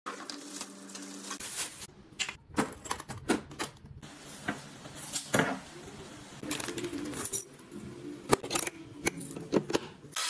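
Cardboard packaging and a plastic tool case being handled and opened, with irregular clicks, knocks and the clatter of metal tools inside the case.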